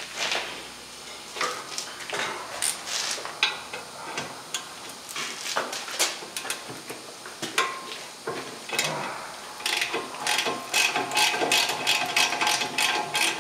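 Ratchet wrench clicking as the caliper mounting bracket bolt is worked loose, with scattered metallic clinks of tool on the brake parts, then a fast run of ratchet clicks in the last few seconds.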